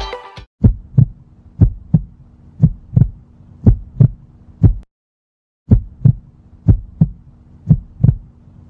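Heartbeat sound effect: paired lub-dub thumps about once a second over a faint low hum, breaking off briefly about five seconds in and then resuming.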